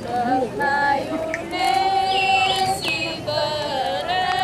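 A high voice, most likely a woman's, singing long held notes that waver and slide in pitch, with a few shorter notes in the first second.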